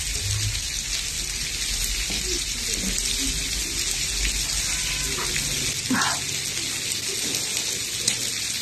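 Food sizzling steadily on a barbecue grill plate, an even hiss throughout, with faint voices in the background.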